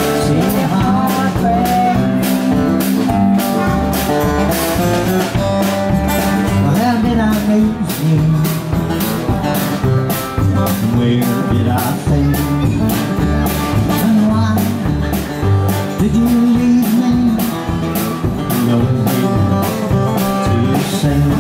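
Country band playing an instrumental break: guitar over a bass line and a steady drum beat.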